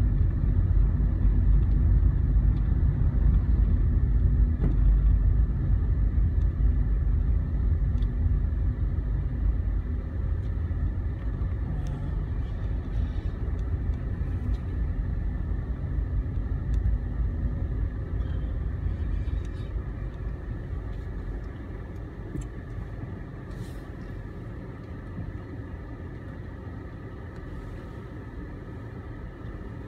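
Road and engine noise inside a moving car's cabin: a steady low rumble that grows quieter in the second half as the car slows almost to a stop.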